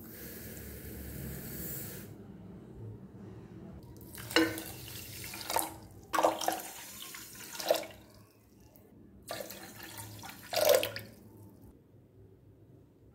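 Water poured into a pot of sugar to make the sugar syrup: a steady pouring hiss at first, then louder splashing pours about four seconds in and again around ten seconds in.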